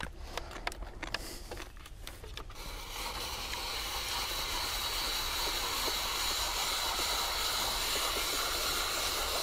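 Hand-cranked spiralizer cutting a beetroot into spaghetti-like strands: a few light clicks at first, then a steady shredding hiss from about two and a half seconds in as the crank is turned.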